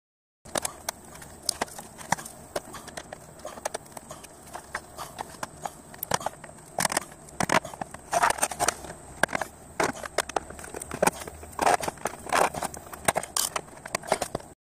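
Wire cutters and a flat screwdriver clicking, scraping and prying in the spark plug tube hole of a plastic valve cover as the old press-fit tube seal is worked out. Irregular sharp clicks and taps, closer together and louder in the second half.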